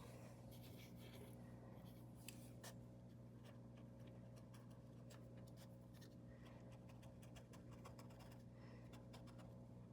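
Near silence: faint, irregular scratching of a paintbrush stroking paint onto the surface, over a steady low electrical hum.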